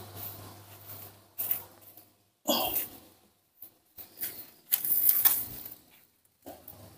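A metal kettle being carried and set down on a cloth on the floor, with handling noise. A short squeaky sound comes about two and a half seconds in.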